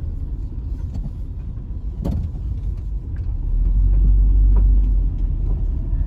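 Car towing a caravan, heard from inside the cabin while driving: a steady low engine and road rumble with a single knock about two seconds in. The rumble swells louder for about a second and a half just past the middle.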